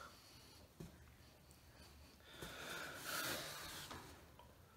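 A man's heavy, breathy exhale, a little over a second long, about two and a half seconds in, against quiet room tone with a faint click near the start.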